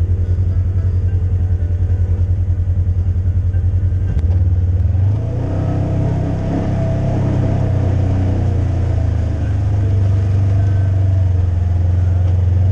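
Off-road vehicle's engine running at low revs with a regular throb as it crawls along a dirt trail; a click about four seconds in, then the engine picks up and runs fuller and steadier as the vehicle speeds up.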